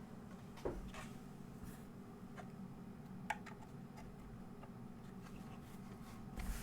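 Topre keys of a Realforce R2 keyboard in a polycarbonate case being pressed one at a time, a handful of separate muted keystrokes at uneven intervals. The heaviest, deeper thud comes under a second in, with another near the end.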